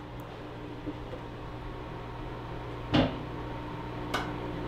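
A sharp knock about three seconds in and a lighter click about a second later, as the foam taxidermy form is bumped into level. A steady low hum runs underneath.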